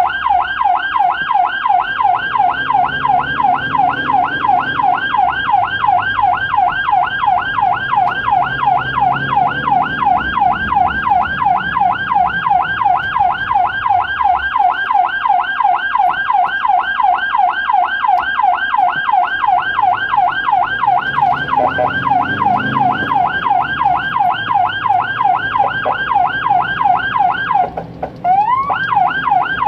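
Mercedes ambulance's electronic siren in a rapid yelp, its pitch sweeping up and down about four times a second. About 28 seconds in it cuts out briefly and comes back with a rising sweep before the fast yelp resumes.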